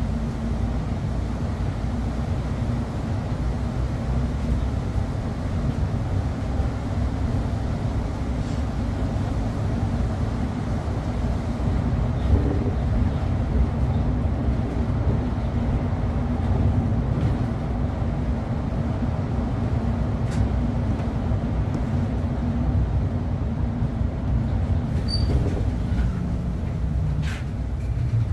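City bus driving along a street, heard from inside: a steady low rumble of the running gear and road with a constant low hum.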